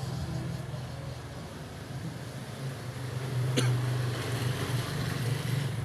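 A steady low mechanical hum, like a motor or engine running, with one sharp click about three and a half seconds in.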